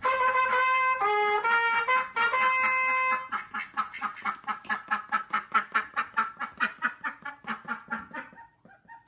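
Music with a trumpet-like melody of held notes, which breaks into a fast run of short repeated notes, about five a second, that fade out near the end.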